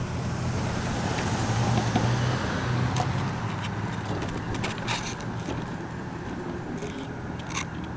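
Electric mobility scooter driving over a rough grass-and-gravel road shoulder: a steady low motor hum with tyre noise and a few clicks and rattles from bumps. A car passes on the road, loudest about two seconds in, then fades.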